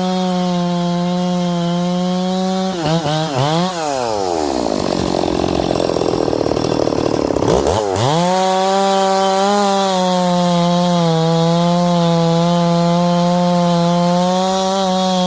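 Stihl 460 Magnum two-stroke chainsaw running at high revs. About three seconds in, the engine speed drops steeply and it runs low and ragged for several seconds as the chain is loaded in a cut. About eight seconds in it revs back up to a steady high pitch.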